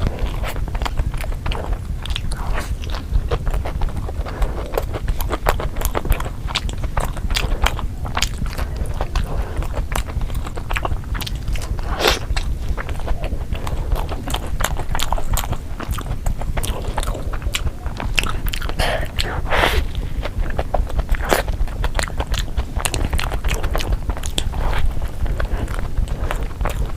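Close-miked eating of a loaded pizza: bites and chewing with many small, irregular mouth clicks and crunches, over a steady low rumble.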